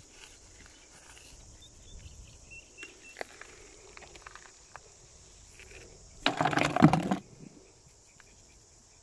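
Sand-caked beach rock being handled in the hand: a burst of gritty crunching and rubbing lasting about a second, about two-thirds of the way in, over a steady high hiss.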